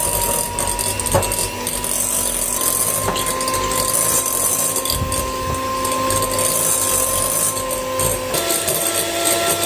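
Electric kitchen mixer running steadily with a motor whine. Its pitch steps up about two and a half seconds in and changes again near the end.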